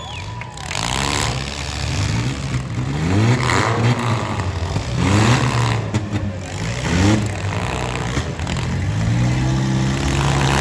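Four-cylinder demolition derby cars' engines revving hard, rising in pitch again and again, then holding a steadier drone near the end.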